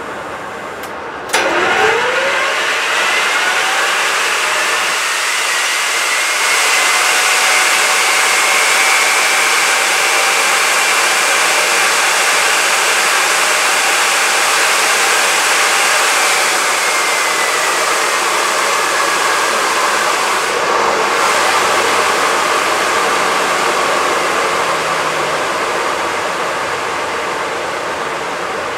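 Fairchild J44 turbojet spinning up during a start attempt. A loud rushing whine starts suddenly about a second in and rises in pitch for several seconds, then holds steady. After that it slowly winds down, the whine falling in pitch and the sound fading.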